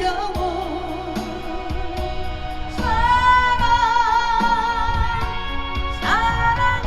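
Woman singing a slow Korean ballad over instrumental accompaniment, her voice wavering with vibrato; about three seconds in she holds one long note, and a new phrase starts near the end.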